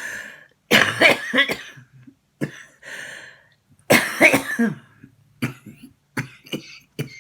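A woman coughing in a lingering cough. There are two long coughing fits, about a second in and about four seconds in, with shorter coughs and throat-clearing between and after them.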